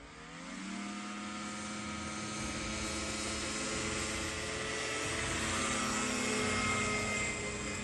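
Homemade single-engine propeller light aircraft's engine being throttled up for the takeoff run. It rises in pitch over about the first second, then holds a steady note, growing slowly louder.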